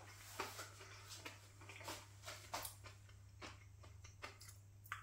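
Quiet chewing of a mouthful of food, with faint scattered mouth clicks and smacks over a low steady hum.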